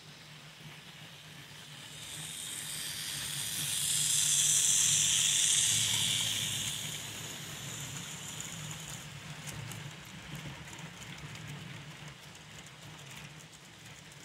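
Model steam locomotives running on a model railway layout: a steady low running hum, with a high hiss that swells over a few seconds and fades as a train passes close, then light clicking of wheels over the track in the later part.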